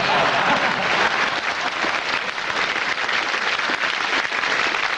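Studio audience applauding, a dense steady clapping that eases off a little toward the end.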